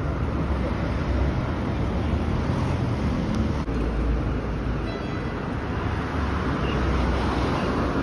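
Storm wind buffeting a phone's microphone: a low, rumbling noise that surges and eases in gusts.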